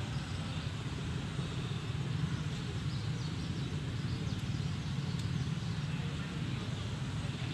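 Steady low background rumble with a faint hiss above it, unbroken throughout.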